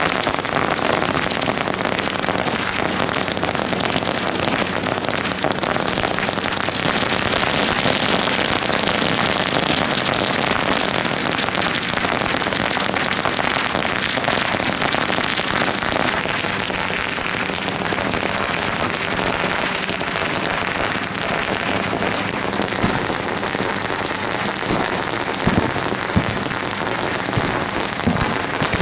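A long string of firecrackers going off in a dense, continuous crackle, with louder single bangs standing out in the last few seconds.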